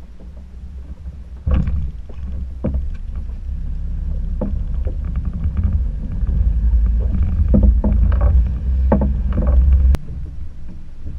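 Small boat at sea: a loud low rumble starts suddenly about a second and a half in and cuts off suddenly near the end, with irregular knocks.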